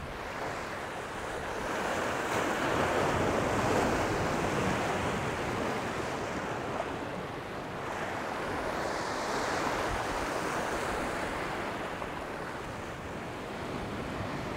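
Sea surf washing against the rocks of a jetty, swelling louder twice as waves come in, with some wind on the microphone.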